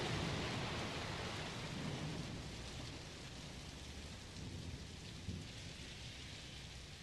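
Recorded rain and thunder: a steady downpour, with a low rumble of thunder that dies away over the first few seconds, the whole slowly fading out.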